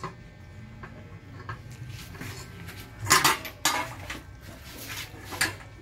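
Stainless steel dog bowl and a metal chain clanking as a dog eats from the bowl, with several irregular clanks, the loudest about three seconds in and another near the end.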